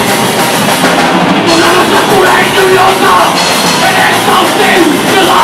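Punk rock band playing live: electric guitar and drum kit, with a sung lead vocal coming in about a second and a half in.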